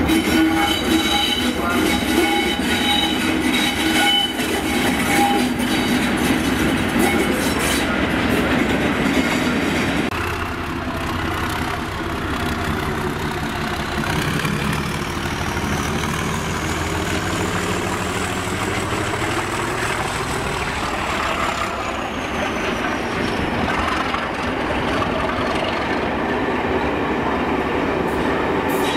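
Diesel locomotives, a Class 37 leading, running through the station with engines running and wheels clicking over rail joints. Partway through, a long high wheel squeal rises and then falls away.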